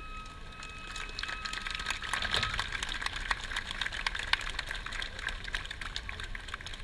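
A held bamboo-flute note that ends about two seconds in, overlapped by dense scattered hand-clapping that continues to the end, without drums.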